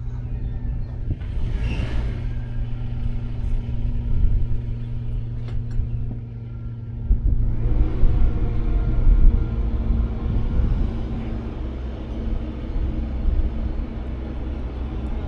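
An engine running steadily, then growing louder and rougher about seven and a half seconds in, as if revved or put under load.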